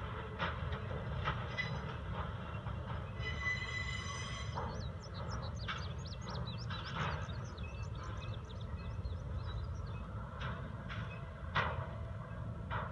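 Distant CSX equipment work train rolling slowly across a steel trestle bridge: a steady low rumble with scattered knocks of wheels and cars, and a brief high squeal about three seconds in.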